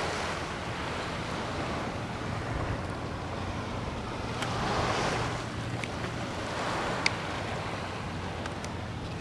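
Wind buffeting the microphone over lapping bay water, swelling briefly about five seconds in. A low steady hum sits underneath, with a few small clicks, the sharpest about seven seconds in.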